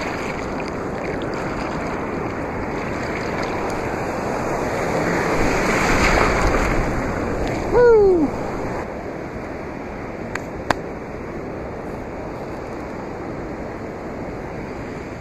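Ocean surf breaking and washing up the beach, a steady rush that swells with a wave about six seconds in. A short falling cry rings out once near the middle.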